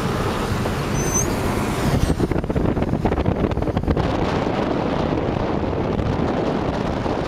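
Steady road and engine noise of a taxi travelling at speed, with wind buffeting the microphone from about two seconds in.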